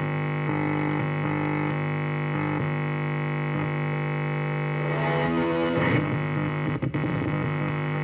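Electric guitar through distortion and effects, holding a sustained buzzing drone on a steady low note while higher notes switch on and off every half second or so. The sound turns more wavering in the last few seconds.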